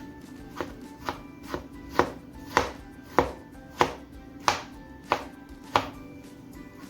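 Kitchen knife chopping vegetables on a cutting board: about ten sharp, even chops, roughly two a second.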